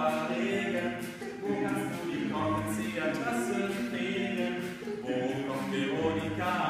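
Male a cappella group singing live in close harmony, several voices holding chords together, with a deep bass voice coming in about two and a half seconds in and again near the end.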